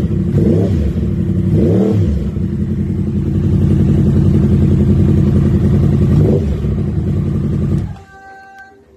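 2018 Yamaha R1's 998 cc crossplane inline-four idling, with quick throttle blips: the revs rise and fall about half a second in, near two seconds and again around six seconds. The engine is switched off near the end.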